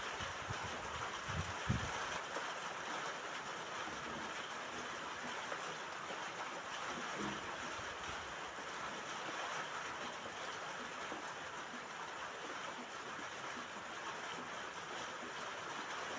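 Steady rain falling on a roof, an even hiss with no letup, with a few soft low thuds in the first two seconds.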